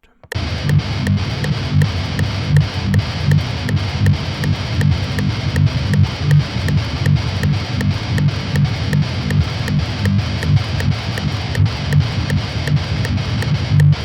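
Electric guitar playing a fast, low chugging metal riff in time with a metronome clicking at 160 beats per minute. The guitar comes in just after the start and holds the tempo through to the end.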